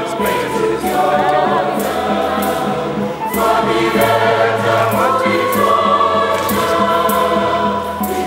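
Large church choir singing a hymn in harmony, with held notes and a light stroke of percussion every second or so.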